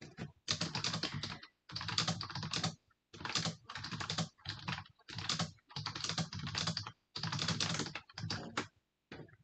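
Typing on a computer keyboard in quick spurts of about a second with short pauses, heard over a video call.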